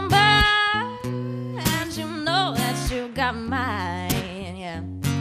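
A band playing live: a singer holds long, wavering notes over guitar and bass.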